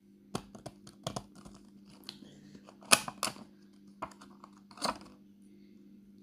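Hands handling packaging and rolls of washi tape: irregular clicks, taps and brief crinkling rustles, the sharpest click about three seconds in.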